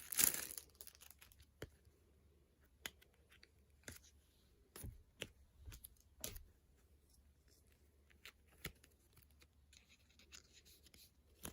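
Faint handling of a photocard in its plastic packaging: about a dozen scattered small clicks, taps and brief scratchy rustles with quiet stretches between them, and a little more rustling near the end.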